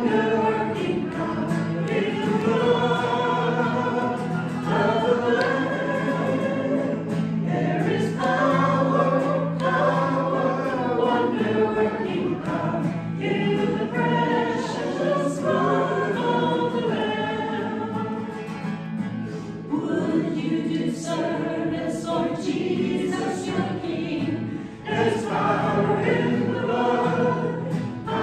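Small church choir singing with instrumental accompaniment, a low note held steadily underneath for the first ten seconds or so.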